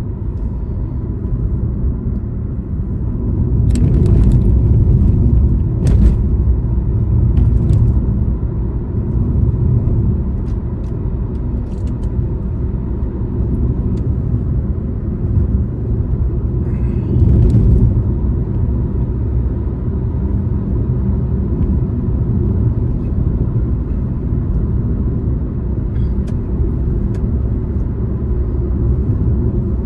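Steady low rumble of a car's engine and tyres on the road, heard from inside the cabin while driving, with a few short knocks and rattles, the loudest about four, six and seventeen seconds in.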